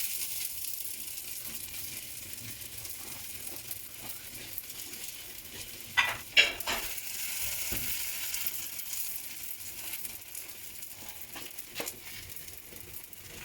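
Murtabak frying in oil and ghee on a hot griddle: a steady sizzle, with a few short sharp clicks about six seconds in and once more near the end.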